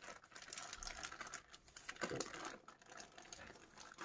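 Baking parchment being peeled off a hot sponge sheet: faint, scattered crackling and rustling of the paper as it comes away.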